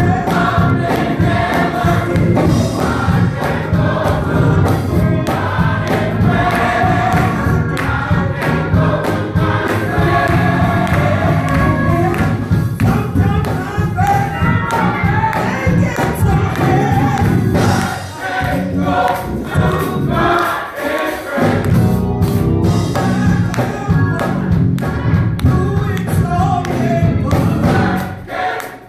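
Gospel choir singing over a band, with drums and bass keeping a steady beat.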